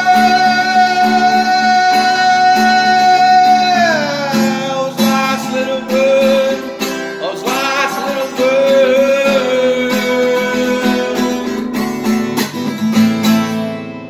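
Man singing with a strummed acoustic guitar: a long held sung note slides down about four seconds in, followed by wavering wordless notes over the strummed chords, and the music stops near the end.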